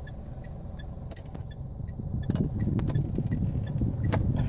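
Clicks, knocks and rubbing from a dashcam's power plug being handled and pushed into a car's cigarette lighter socket, getting louder after about two seconds. Under it is a steady low rumble and a faint regular ticking.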